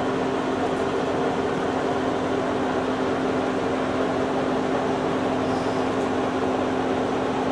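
A steady mechanical hum with a constant low drone that holds one pitch throughout.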